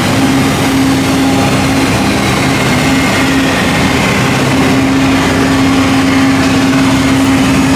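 Steady machinery drone in an aircraft hangar: a constant low hum over a broad running noise, with no change in level.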